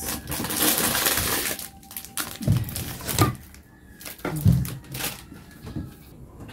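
Rustling and scraping inside a cardboard box, then four or five dull knocks as metal food cans are lifted out and set down.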